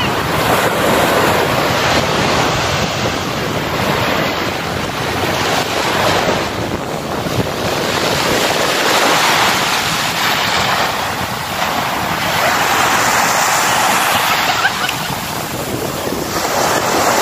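Small waves breaking and washing up onto a sandy shore, the surf swelling and easing in surges every few seconds.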